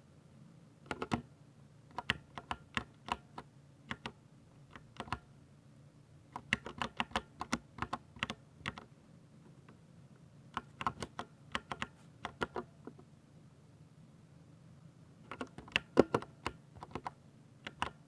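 Typing on a mechanical keyboard: bursts of crisp key clicks in quick runs, with short pauses between the runs.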